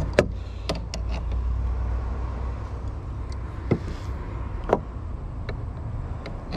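A few sharp clicks and knocks of a wrench working a boat's steering-cable fitting, over a steady low rumble.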